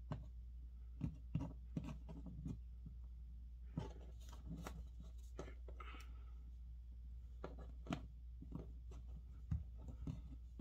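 Tiny rubber puzzle-eraser pieces being handled and pressed together on a wooden tabletop: scattered light taps and clicks with a few brief scratchy rustles, over a steady low hum.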